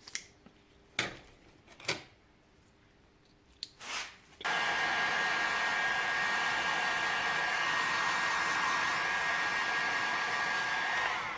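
A few light knocks from parts being handled, then a heat gun switches on about four and a half seconds in and runs with a steady blowing hiss and a high whine, cutting off near the end. It is shrinking heat-shrink tubing onto a rusted panoramic-roof guide rod to thicken it.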